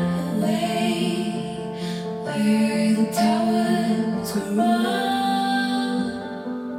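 Slow, soft song with a female singing voice, played through YG Acoustics Vantage 3 loudspeakers driven by a Lyngdorf TDAI-2210 integrated amplifier and picked up in the room.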